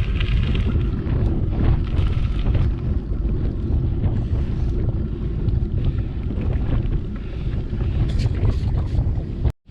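Wind buffeting the microphone during a bicycle ride: a loud, steady low rumble, which breaks off abruptly for a moment near the end.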